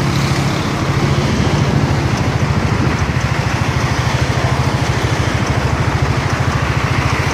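A vehicle engine running steadily with a fast, even low pulse, over a constant hiss of road and wind noise.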